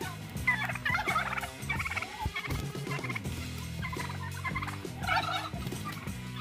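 Domestic turkeys gobbling in short rapid rattling bursts, several times, while fighting a rooster.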